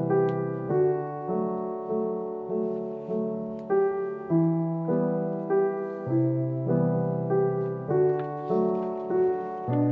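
Background piano music: a repeating run of notes, about two a second.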